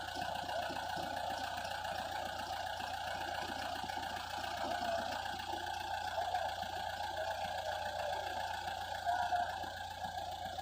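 Engine idling steadily with a rapid, even knock, typical of a diesel tractor or truck engine.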